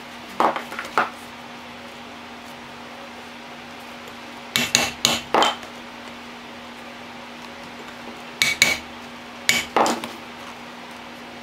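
A mallet striking a round hole punch through leather: groups of sharp knocks, a few under a second in, three or four about five seconds in, and two more groups near the end as each drawstring hole is punched.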